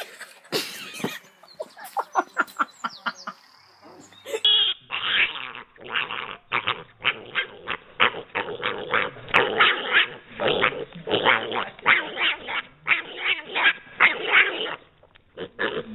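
A dog barking over and over in quick runs, about three barks a second for most of the stretch.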